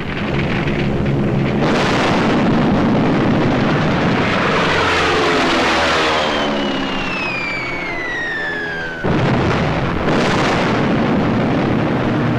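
Air-raid sound effects on an old film soundtrack. A steady engine drone runs under repeated blasts, and a falling bomb's whistle drops in pitch over about three seconds and cuts off. Right after, new blasts begin.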